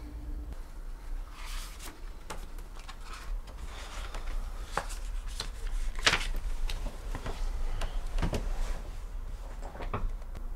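Irregular rustling and crinkling of paper and bedding as a small book is picked up and handled, with about a dozen short sharp rustles, the loudest about six seconds in, over a low steady hum.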